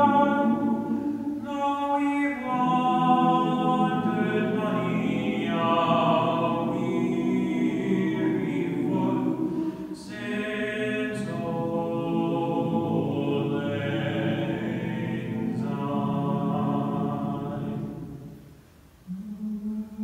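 All-male a cappella choir singing in close harmony on long held notes, fading out near the end.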